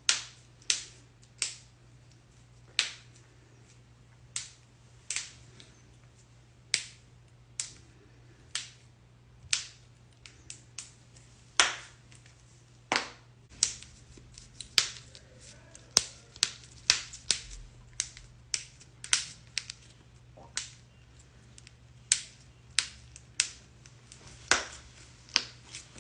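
Knuckles being cracked: a long run of sharp, separate pops, about one or two a second at an uneven pace, over a faint steady hum.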